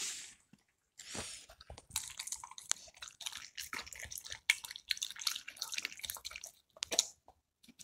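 A dog eating raw meat and egg from a bowl: wet, clicky chewing and biting that starts about a second in, with a short pause near the end.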